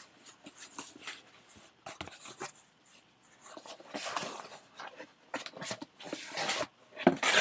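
A taped parcel being worked open by hand: irregular rustles, scrapes and small clicks of packaging.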